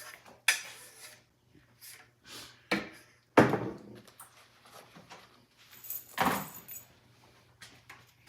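Lumber and tools being handled during carpentry work: four separate knocks and clatters, the loudest about three and a half seconds in.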